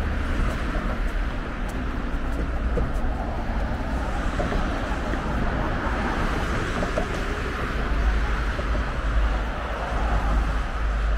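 Steady road traffic noise from cars and buses passing on a busy road, with a deep rumble under it.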